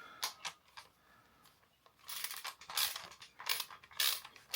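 Socket ratchet wrench with a 10 mm socket working a bolt: a couple of clicks as the socket goes on, then from about two seconds in a steady run of ratcheting strokes, about one every 0.6 s.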